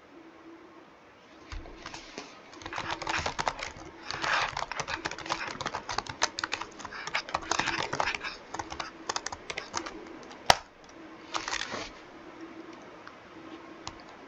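Typing on a computer keyboard: a fast run of keystrokes starts about a second and a half in and thins out after about ten seconds. One sharp click, louder than the rest, comes about ten and a half seconds in.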